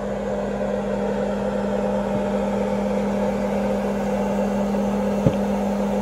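Microwave oven running while it cooks: a steady hum with fan whir, and one short knock about five seconds in.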